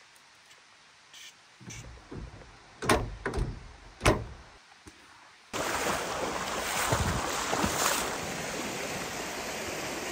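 A few knocks and thumps in near quiet. Then, about five and a half seconds in, the steady rush of a shallow rocky creek flowing over stones begins.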